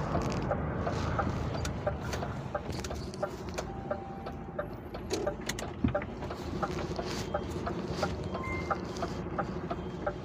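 A lorry's indicator relay ticking steadily, a few clicks a second, over the low running of the diesel engine heard inside the cab.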